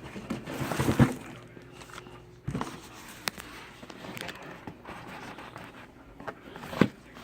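Packaging being handled: rustling with scattered knocks and clicks as items are taken out of a cardboard box, with a sharper knock about a second in and another near the end.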